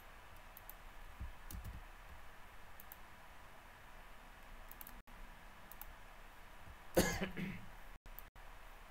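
A person coughs once, short and sharp, about seven seconds in, over faint hiss and a few faint computer clicks.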